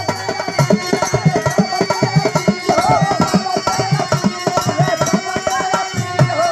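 Instrumental interlude of folk-song accompaniment: a harmonium plays a melody over a quick, steady hand-drum rhythm.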